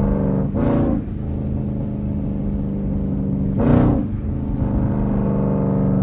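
A Jeep Grand Cherokee's 5.7-litre Hemi V8 running steadily at low cruising speed, heard from inside the cabin, with its exhaust note carrying loudly. Two short vocal sounds break in, one under a second in and a louder one about four seconds in.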